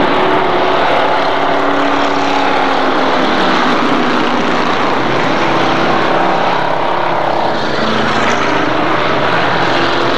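A pack of race cars running at speed around a short oval track: a steady, loud engine drone with several overlapping engine tones rising and falling as the cars lap.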